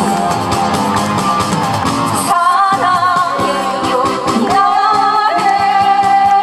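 A man and a woman singing a duet into microphones over instrumental accompaniment, holding long notes in the second half.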